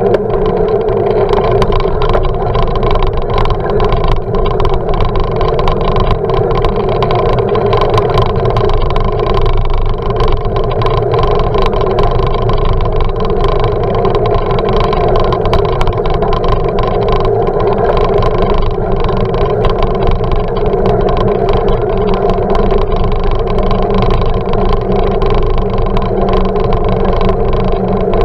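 Steady rumble and rattle of a bicycle ride, picked up through a camera in a closed housing on the bike, so it sounds muffled and boomy. The tyres run over asphalt and paving blocks, with many small knocks from bumps in the surface.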